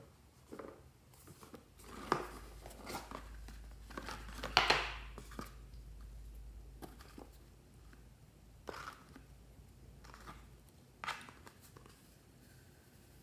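Cardboard gift box being opened and handled, with small items lifted out: scattered taps, scrapes and rustles of cardboard and small objects, the loudest about four and a half seconds in.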